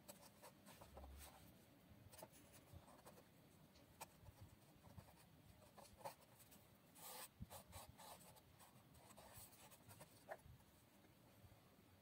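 Faint handling sounds of small thin wooden parts: scattered light taps and clicks, with a short scratchy rub about seven seconds in, as rings are glued around the door opening of a small wooden box.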